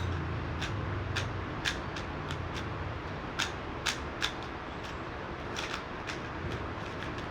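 A magnetic speed cube being turned by hand, its layers clicking irregularly a few times a second over a steady low background hum.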